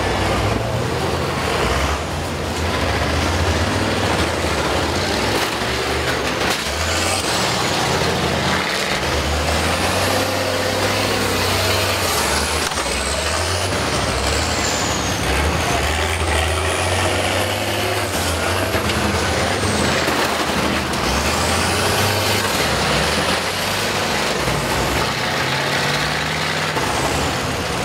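Several old school buses' engines running and revving, the pitch rising and falling as the buses reverse and drive off on the restart of a demolition derby heat.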